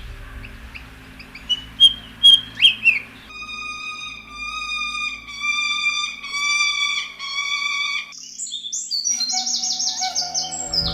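Songbirds calling: a few sharp rising chirps, then a run of repeated clear whistled notes, then quick high, falling twitters near the end, over a faint steady low hum.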